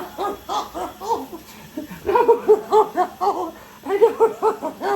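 A person laughing, a quick string of short pitched "ha" syllables in three runs with brief pauses between.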